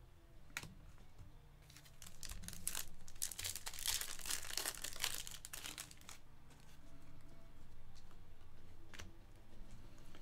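A foil trading-card pack torn open and its wrapper crinkled, the crackling densest and loudest through the first half, then quieter rustling with a few light clicks as the cards are handled.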